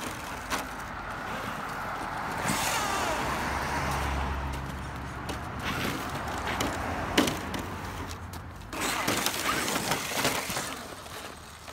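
Traxxas X-Maxx and Slash radio-control trucks driving through snow: electric motors whining and tyres churning and crunching the snow, with a few sharp knocks.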